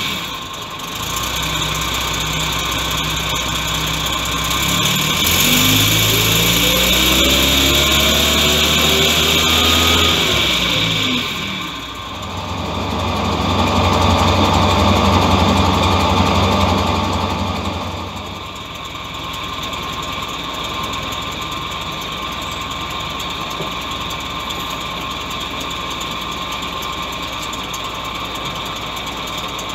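The Rolls-Royce B6 4.2-litre straight-six of a 1953 Daimler Ferret running just after a cold start, its carburettor and ignition freshly rebuilt after years of storage. It idles, is revved slowly up and back down about five seconds in, then settles to a steady idle.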